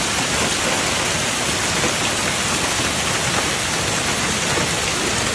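Heavy hail falling on a street and parked cars: a dense, steady rush of countless small impacts with no let-up.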